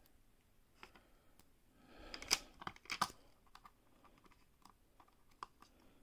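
Small clicks and light taps of a precision screwdriver and a tiny screw being handled and fitted into a netbook's frame, with a brief louder scuffle and two sharp clacks about two to three seconds in.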